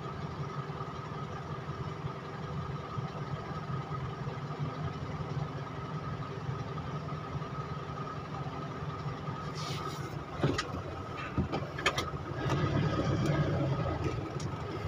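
A vehicle engine running steadily with a low hum, with a few sharp clicks about ten and twelve seconds in and a slightly louder stretch near the end.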